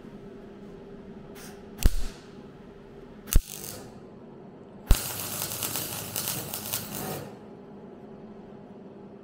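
MIG welder arcing on car body sheet steel: two short crackling tacks about two and three and a half seconds in, then a crackling weld run of about two seconds, over a steady low hum.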